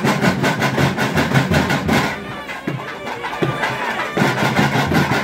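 Festival music: a loud reed wind instrument playing over a fast, even beat.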